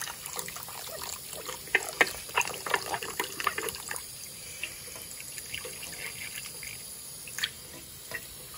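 A stream of water running into a small tarantula water dish held over a sink and splashing into the basin as the dish is rinsed out. There is a flurry of splashes between about 2 and 4 seconds in, then a steadier pour with a couple of single splashes near the end.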